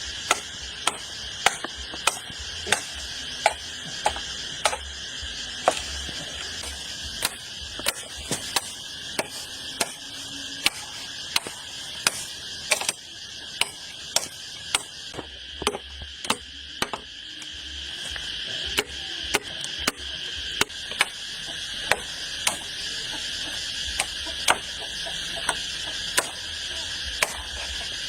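Repeated sharp knocks of blows being struck, about one to two a second, with a steady high insect drone behind.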